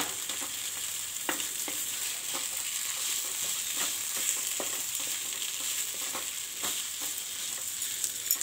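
Mashed potato and onion filling sizzling in a frying pan as a wooden spatula stirs and scrapes through it, with an irregular soft knock of the spatula against the pan about once a second.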